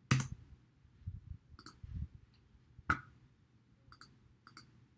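Computer mouse and keyboard clicks: a handful of short, separate clicks spread over several seconds, the sharpest at the start and a little before the end.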